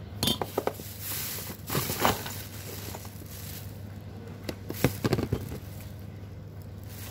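A plastic bag crinkling and rustling as hands rummage in it, with small hard plastic tricycle parts clicking and knocking against each other. There is a cluster of sharp clicks near the start and another around five seconds in.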